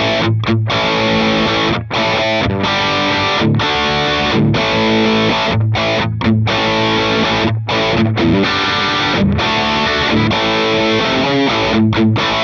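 Electric guitar playing a rock chord riff with a crunchy overdrive tone from the Line 6 HX Stomp's Compulsive Drive, a digital model of the Fulltone OCD pedal, through a clean amplifier and 2x12 cabinet. Ringing chords are cut by short breaks every second or so.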